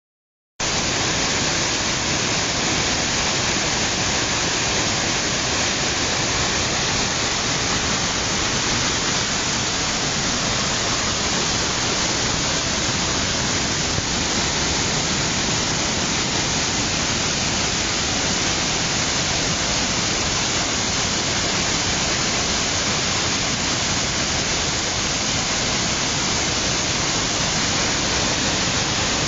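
Steady rush of a waterfall, starting abruptly about half a second in and holding an even, unbroken level throughout.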